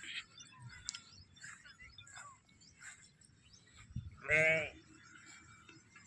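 A sheep bleats once, loud and wavering, about four seconds in.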